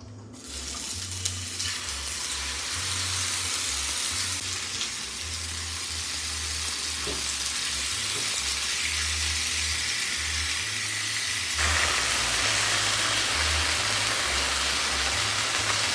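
Food sizzling in a hot frying pan, a steady hiss that starts suddenly at the outset and gets louder about twelve seconds in.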